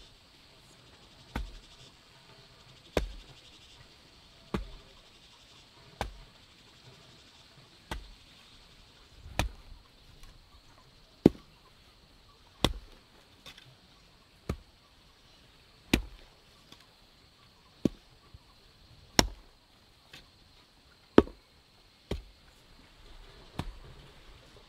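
Garden hoe chopping into soil over and over, a sharp thud about every one and a half seconds.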